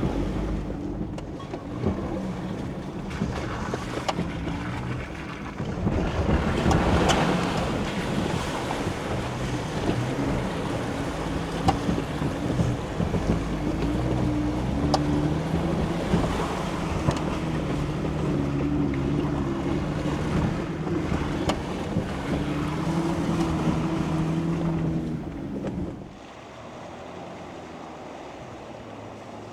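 Off-road 4x4 engine working at low speed over a rough, rocky trail, its pitch rising and falling with the throttle, with tyre and body noise, a few sharp knocks and wind on the microphone. About 26 seconds in the sound drops sharply to a much quieter rumble.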